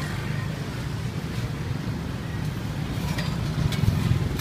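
A steady low rumble, with a few light clicks and clinks in the last second or so.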